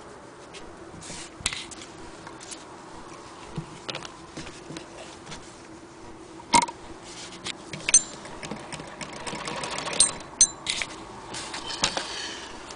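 Singer 99K hand-crank sewing machine being worked by hand: scattered sharp clicks and knocks from its mechanism, with a stretch of fast, even ticking about nine seconds in.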